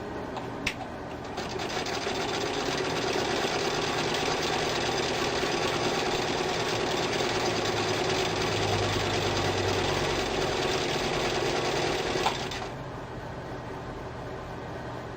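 Singer Model 66-16 sewing machine running under its electric motor, stitching steadily for about eleven seconds. It starts about a second and a half in and stops with a click near the end.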